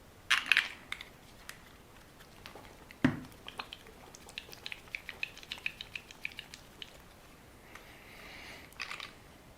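Plastic packaging of a tube of super glue gel being opened and handled: scattered small crackles and clicks, one knock about three seconds in, a run of quick ticks in the middle, and a soft rustle near the end.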